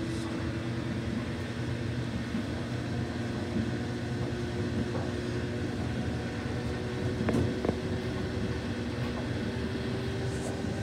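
Samsung front-loading washing machine running with one towel in the drum: a steady motor hum with a tone that rises slightly, and a couple of faint knocks about seven seconds in.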